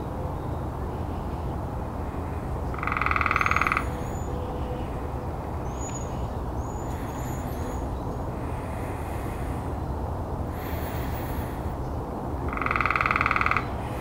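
Woodpecker making two rapid, evenly pulsed rolls, each about a second long and steady in pitch, one about three seconds in and the other near the end. A faint high chirping comes in between.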